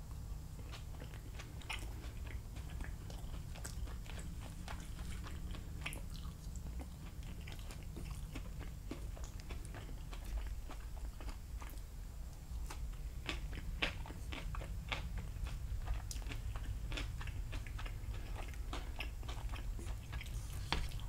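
Close-miked chewing and mouth sounds of a person eating cooked vegetables and chicken, with irregular small clicks as a wooden fork picks at a plate, over a steady low hum.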